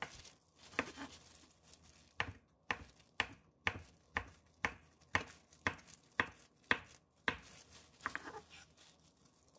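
Kitchen knife slicing a thin egg omelette sheet into strips on a wooden cutting board, the blade knocking on the board about twice a second in a steady run of strokes.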